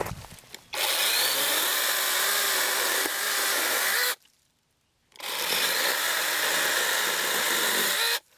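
NaTiddy battery-powered mini chainsaw cutting through a Leyland cypress branch: the electric motor and chain run under load with a wavering pitch. Two spells of about three seconds each, both starting and stopping abruptly.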